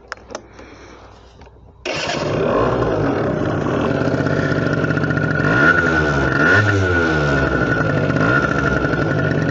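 Adly 50 cc quad's engine, loud from about two seconds in, running with several quick throttle blips that rev up and fall back. A couple of short clicks come just before it.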